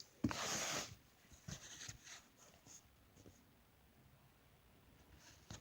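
Handling noise: one brief scratchy rustle, then a few softer rustles and taps as a plush toy and its fabric cape are handled.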